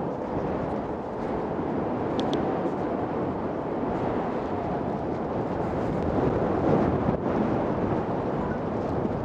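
Steady wind rush on the microphone of a camera riding along on a moving electric unicycle, mixed with rolling noise from the ride. Two brief high chirps come about two seconds in.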